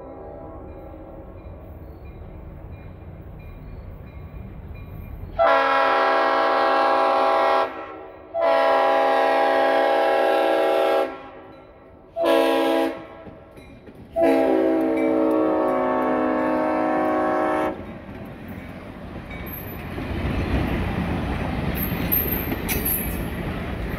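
Locomotive horn sounding the grade-crossing signal: two long blasts, a short one and a final long one, each a chord of several tones. About six seconds later the train arrives and runs past, its wheels rumbling and rattling on the rails.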